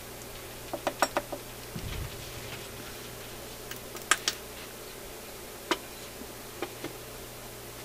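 Small metal parts of a BSR record changer clicking and clinking as they are worked by hand. A quick cluster of light clicks comes about a second in, then a soft thump, then scattered single clicks.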